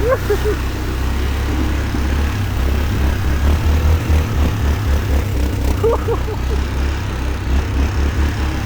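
2004 Yamaha Kodiak 450 ATV's single-cylinder four-stroke engine running under way, its low note pulsing unevenly from about two and a half seconds in.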